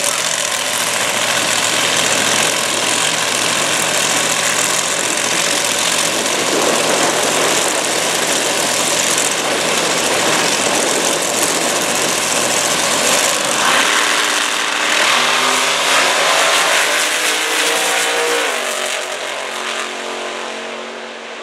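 Two Top Dragster race cars' engines running loud at the starting line, then launching about two-thirds of the way through: the engine note climbs steeply as they accelerate away down the strip, and the sound fades near the end.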